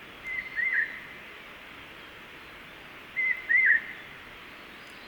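A bird calling: a whistled two-part call, a short level note then a curving, falling one, given twice about three seconds apart, over a steady background hiss.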